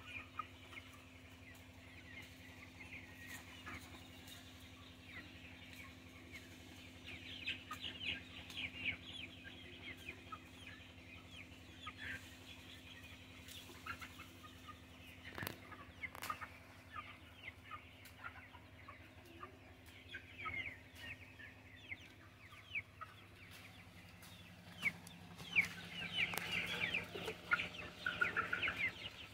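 A flock of six-week-old chicks peeping and clucking, many short high calls overlapping, busiest around eight seconds in and again near the end.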